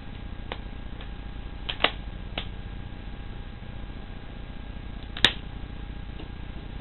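Several short sharp clicks over a steady background, two of them louder, about three and a half seconds apart.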